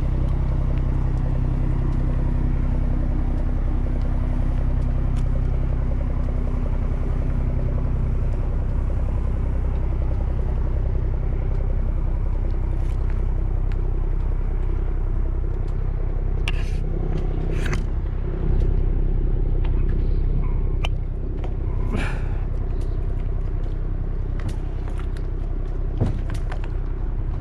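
An engine running steadily with a low rumble; its hum changes about eight seconds in, and a few sharp knocks or clicks come over it later.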